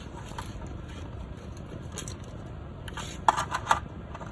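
Hands handling wire leads and a plastic dash panel: light rustling and scraping, then a quick run of sharp clicks a little over three seconds in.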